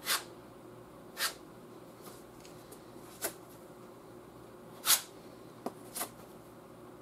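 Steel spreader scraping body filler across a fender panel in short strokes. There are five quick scrapes, a second or two apart, over a faint steady hum.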